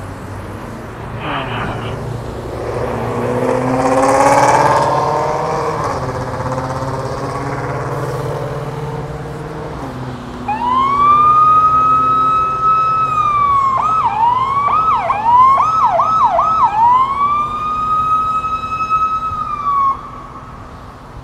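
Freeway traffic, with a vehicle engine rising in pitch as it passes. About ten seconds in, a police car siren starts with a long wail, switches to a run of fast yelps, returns to a wail, and cuts off shortly before the end.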